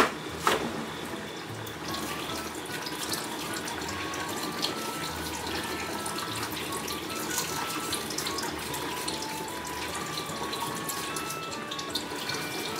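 Water running steadily from a kitchen tap into the sink, under light background music with a simple stepping melody. Two sharp clicks right at the start.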